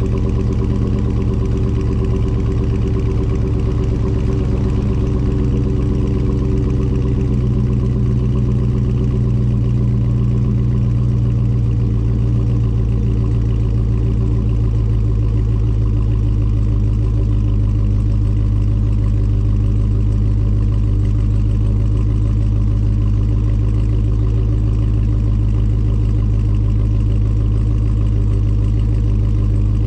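2021 Dodge Charger Daytona 392's 6.4-litre HEMI V8 idling steadily and loudly after a cold start, its idle easing down slightly about twelve seconds in.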